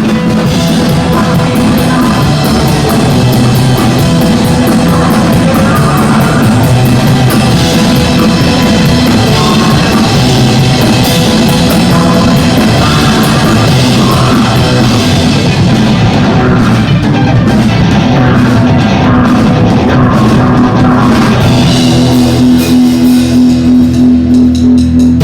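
A live band playing loud rock music with a drum kit. Near the end a low note is held under fast, even pulses.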